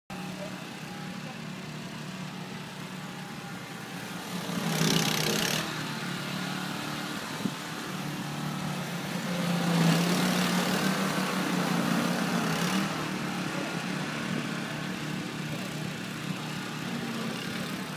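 Snowblower engine running steadily, with louder stretches of rushing noise about five seconds in and again from about ten to thirteen seconds in.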